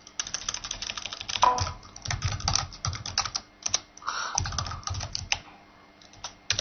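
Computer keyboard being typed on in quick runs of keystrokes, with a short break about four seconds in and only a few scattered key presses near the end.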